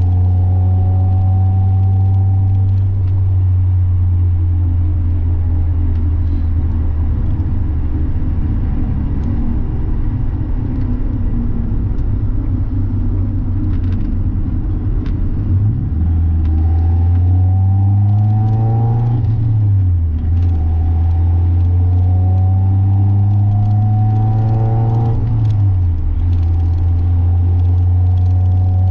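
Mazda Miata's four-cylinder engine and exhaust on the move: a stretch of coasting with road rumble, then the revs climb twice under acceleration, each time falling sharply at an upshift, before settling into a steady cruise.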